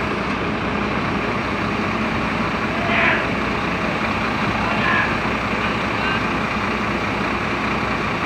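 Cab-over truck tractor's diesel engine running steadily while the unit moves slowly, with a constant low hum under it. A short burst of higher noise comes about three seconds in.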